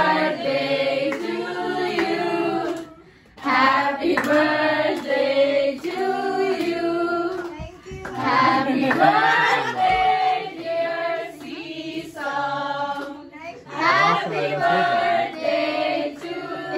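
A group of voices singing a song together, with hands clapping along; the singing comes in phrases of a few seconds with short breaks between them.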